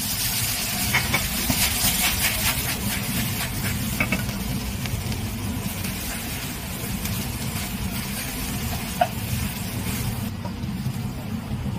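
Scrambled egg and green vegetables sizzling in a wok as they are stir-fried with a wooden spatula, with a few sharp taps of the spatula against the pan and a steady low rumble underneath. The sizzle thins out near the end.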